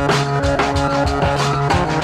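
Hip-hop track with a steady drum beat over sustained, looping instrumental notes.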